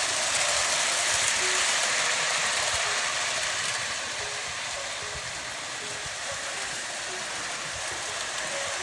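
Model train running around a holiday layout: a steady rushing hiss of motor and wheels on track, easing off slightly partway through.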